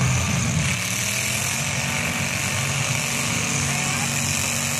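Engines of several demolition-derby pickup trucks running and revving together as they drive around a dirt arena, a steady low engine drone with a hiss over it.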